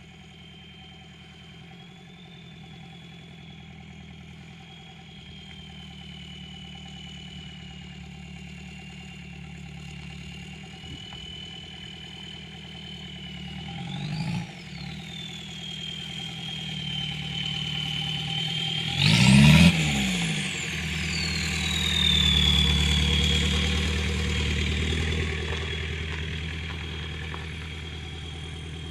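VW AAZ 1.9 turbo-diesel four-cylinder idling through a straight pipe, with the K03 turbo's steady high whistle over it. It is blipped briefly about halfway through, then revved hard about two-thirds of the way in, the turbo whistle shooting up high and winding down over a couple of seconds.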